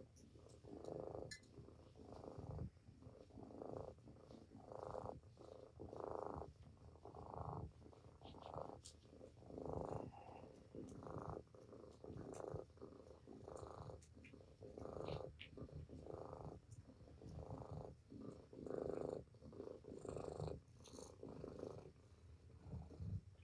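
Domestic cat purring while being petted: a steady motor-like rumble that swells and fades with each breath, about once a second.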